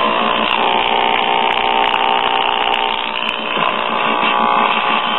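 Small Zenith transistor radio's speaker giving out a loud buzzing hum with faint record audio under it, received over the air from a Dynavox wireless phono transmitter. The hum comes from a bad filter capacitor in the transmitter. The sound shifts abruptly about half a second in and again after about three and a half seconds.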